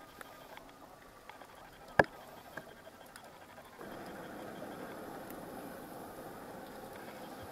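Underwater ambience picked up by the camera: faint scattered clicks and crackle, with one sharp click about two seconds in, then a steadier hiss from about four seconds in.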